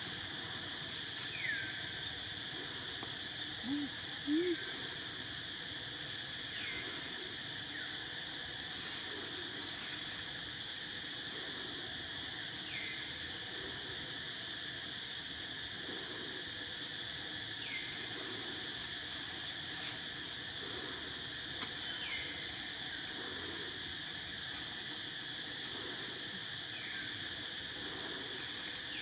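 A steady, high-pitched insect chorus, with short falling chirps every few seconds and two brief low rising calls about four seconds in.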